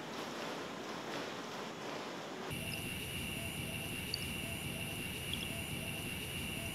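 Faint night ambience of insects chirring steadily, coming in suddenly about two and a half seconds in over a low background hiss, with a soft low call repeating about twice a second.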